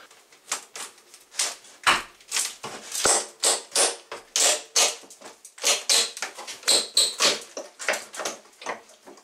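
Quick, irregular scraping and clicking strokes, a few a second, from hand work on the old metal jalousie window frame and its louvers.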